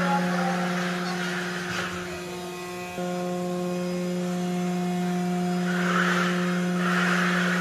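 Electric drive of a four-wheel independent steering test vehicle running: a steady low hum with overtones, with a whirring hiss that swells near the start and again about six seconds in as the vehicle moves. The hum sags for a moment and comes back abruptly about three seconds in.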